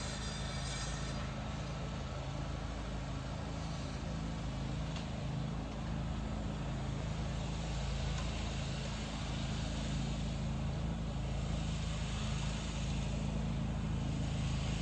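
Steady low rumble and hiss of distant road traffic, with a constant low hum underneath.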